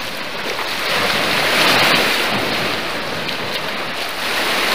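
Lake waves washing onto the shore: a steady rush of surf that swells a little about two seconds in and then eases.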